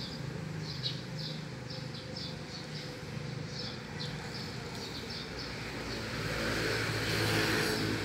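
Street traffic: a steady low engine hum, with a vehicle passing and its noise swelling from about six seconds in. A small bird chirps repeatedly through the first half.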